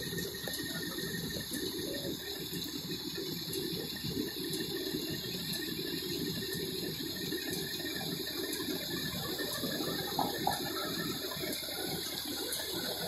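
A fire engine running, heard as a steady rumbling hiss with faint ticking about twice a second.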